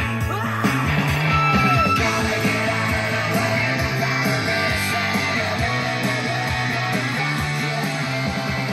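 Rock music played through a pair of KLH 403A indoor/outdoor speakers, small two-way boxes with 4-inch polypropylene mid-woofers and piezo tweeters, at a steady, fairly loud level.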